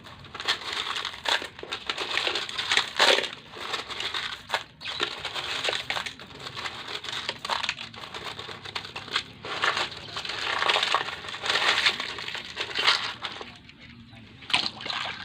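Small coloured gravel being dug and stirred by hand, the pebbles crunching and rattling in irregular bursts with sharp clicks of stone on stone.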